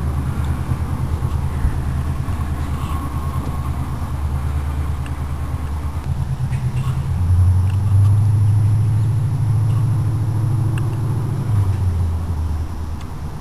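A 1974 Chevy K10's 350 small-block V8 running on open headers with no mufflers, a low, steady exhaust note. It grows louder for a few seconds in the middle, then falls away near the end.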